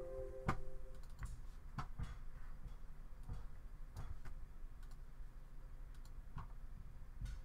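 A ringing chime dies away in the first second, then faint, irregular clicks at a computer, about one every second or so.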